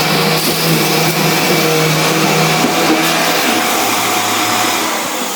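Vax vacuum cleaner motor running steadily with a loud whirring whine. About three and a half seconds in its hum drops lower, and near the end it starts to wind down.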